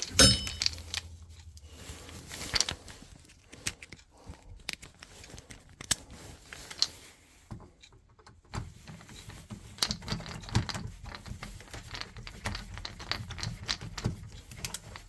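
Hand tools and small parts being handled: a loud knock at the start, then a string of irregular small clicks, taps and rattles.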